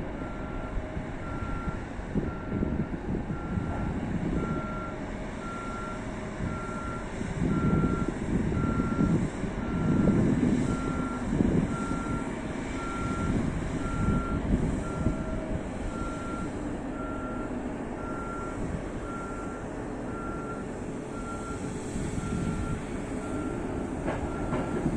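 A reversing alarm beeping steadily at even intervals, over the constant low rumble of heavy mining machinery with a few louder rumbling surges in the middle.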